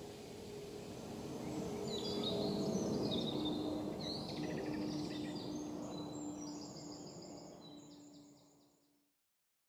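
A jet airliner passing overhead: a low rumble that swells and then fades, its engine tone dropping in pitch as it goes by. Birds call over it, and the sound fades out to silence near the end.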